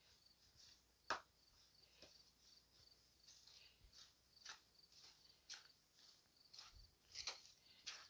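Faint, short scraping strokes of a wooden-handled stirrer working through damp crushed charcoal and worm castings in a plastic tub, roughly one a second, the loudest about a second in. A faint, steady cricket-like chirping runs behind.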